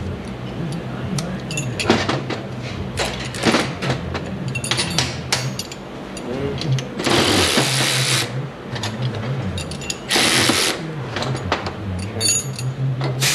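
Power ratchet run in two short bursts, about a second and under a second long, on steering box fasteners. Between them come clicks and knocks of tools and parts on the bench.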